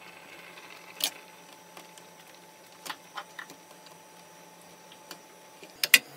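Kitchen utensils knocking and clicking against bowls, pot and cutting board while tofu is added to a pot of stew: a handful of short sharp knocks, the loudest a quick pair near the end, over a faint steady low hum.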